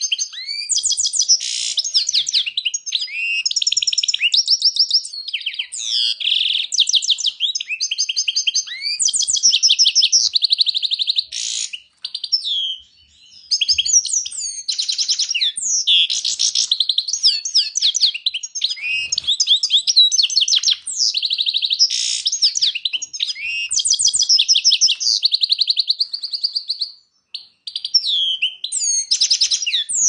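European goldfinch singing a long run of fast, liquid twittering phrases and rapid trills, broken by two short pauses.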